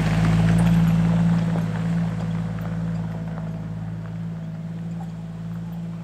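Jeep Wrangler JK driving past on a gravel dirt road: the engine running and the tyres crunching on the gravel. It is loudest about a second in, then fades steadily as the Jeep moves away.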